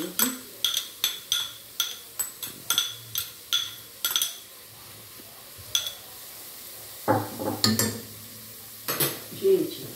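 A bowl tapped against the rim of an aluminium saucepan, about four quick taps a second for some four seconds, each with a short clink, as the last chopped parsley and green onion are knocked out. A single tap follows, then a few louder knocks and rustles near the end.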